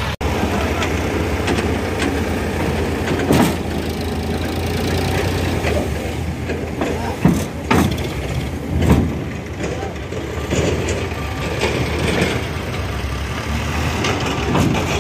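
Sonalika DI 50 tractor's diesel engine running steadily while its hydraulic tipping trailer dumps a load of soil, with several loud thumps and knocks as the load comes off.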